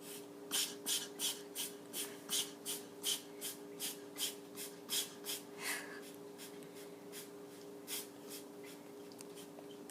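An animal's quick run of nasal sniffs or snorts, about three a second for some six seconds, then one more near the end, over a faint steady hum.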